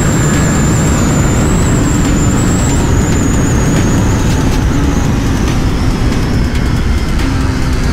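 KTM RC 390's single-cylinder engine running steadily at highway speed, heard under a loud, constant rush of wind over the microphone, with a faint high whine that drifts slowly down in pitch.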